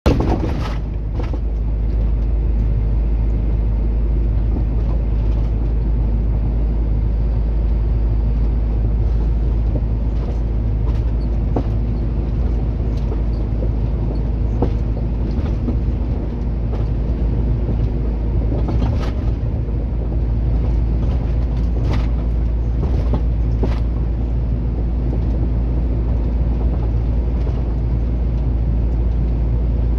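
Truck cab interior while driving at steady highway speed: a constant low engine drone and road noise, with a few faint clicks or rattles about a second in and again around two-thirds of the way through.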